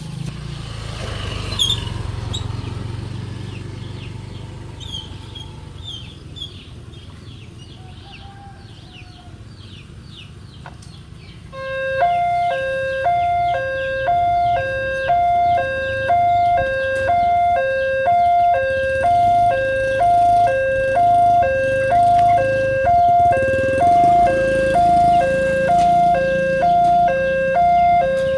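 A railway level-crossing alarm starts about twelve seconds in: a fast-tempo electronic two-tone ding-dong, repeating evenly about once a second, warning of an approaching train. Before it, the rumble of a passing road vehicle fades away under faint chirping.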